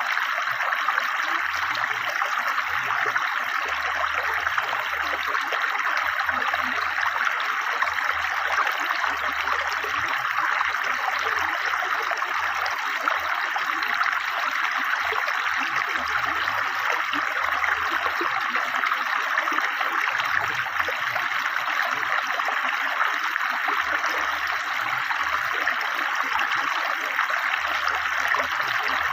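River water flowing fast, a steady, unbroken rush.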